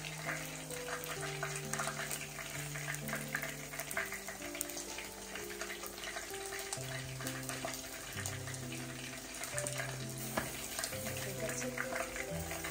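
Gentle background music with a slow bass line over a steady crackling hiss of food cooking on the stove, with small clicks of leaves being handled.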